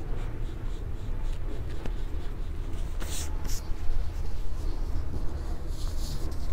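Oil pastel scraping back and forth across drawing paper as a shape is coloured in, over a low steady rumble, with a few brief papery brushes about halfway through and near the end.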